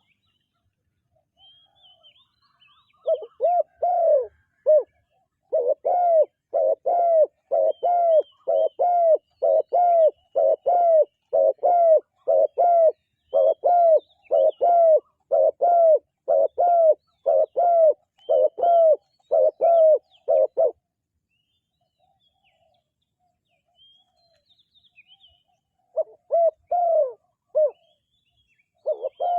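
Spotted dove cooing: a long, steady run of short low coos, about two a second, that stops for a few seconds and then starts again near the end. Faint high chirps of small birds sound behind it.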